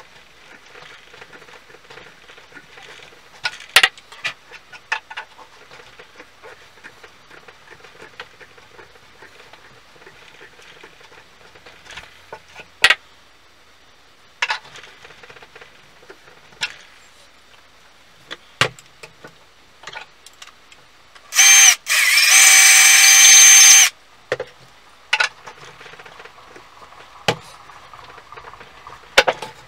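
New ash handle being twisted and pressed onto a Narex chisel's tang: faint scraping and rubbing of wood, with scattered sharp knocks and taps. About two-thirds of the way through, a loud harsh noise with a steady whine lasts about two and a half seconds, broken briefly near its start.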